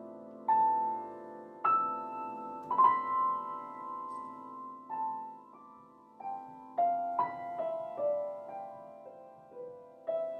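Solo piano playing slow, separate notes that ring and fade over a chord dying away, the line stepping downward in pitch in the second half.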